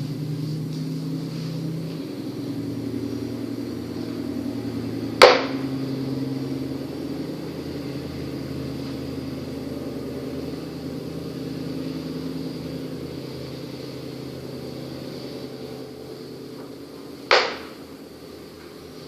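Two sharp clicks of makruk (Thai chess) moves being played, one about five seconds in and one near the end, over a steady low hum.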